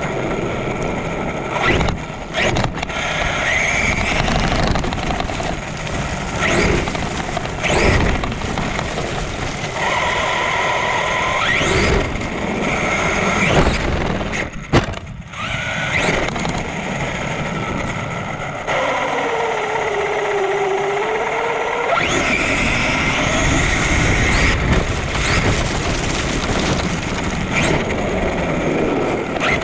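Traxxas Sledge RC monster truck on 6S power heard from its onboard camera: the brushless motor and drivetrain whine rising and falling with the throttle over tyre and wind noise. A couple of hard knocks about halfway through as it jumps and lands.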